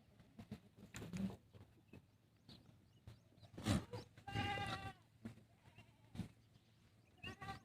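Goat bleating: one long, wavering bleat about halfway through and a shorter one near the end, with a few thumps and shuffles between.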